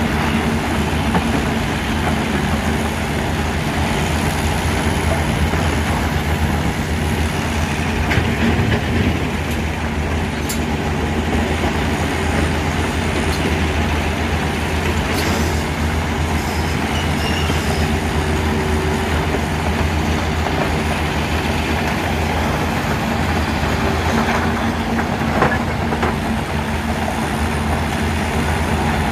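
A mobile impact stone crusher and a Hitachi excavator's diesel running steadily together, the crusher rumbling and clattering as it breaks rock fed into its hopper. A few sharp knocks stand out, about ten, fifteen and twenty-five seconds in.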